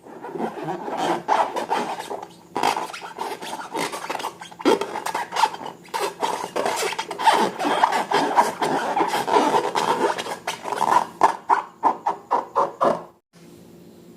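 Slime being worked, with a dense run of irregular crackles and rubbing or scraping sounds. The crackles come more separately near the end, then stop suddenly.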